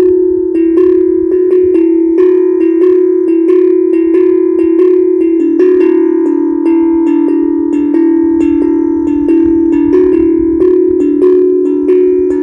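HAPI steel tongue drum played by hand: a steady run of struck notes, a few a second, each ringing on into the next.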